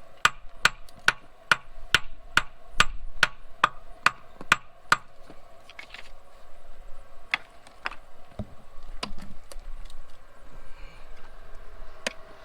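Hammer striking metal: a quick run of light, sharp strikes, about three a second for the first five seconds, then a handful of scattered taps, on a freshly welded washer and nut.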